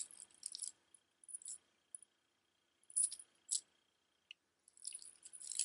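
Gold-tone metal chain necklace links clinking softly as the necklace is handled, in a few short scattered jingles with a denser run near the end.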